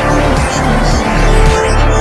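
Loud instrumental film-score music with heavy bass and sustained synth tones.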